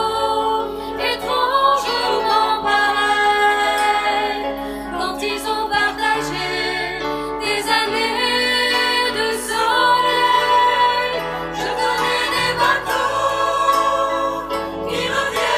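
A choir singing a French song in harmony, with long held notes and a low sustained line beneath the upper voices.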